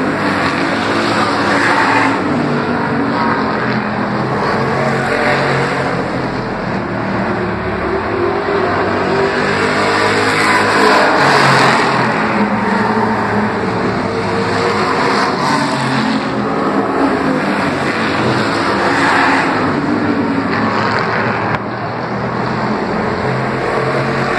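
Street stock race cars' engines running at racing speed on the oval, swelling louder several times as cars pass close and then fading, the engine pitch rising and falling through the laps.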